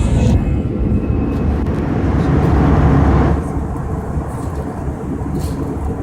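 Cabin noise of an Airbus A319-111 climbing after takeoff: the steady low rumble of its CFM56 engines and airflow. A higher hiss drops away about halfway through.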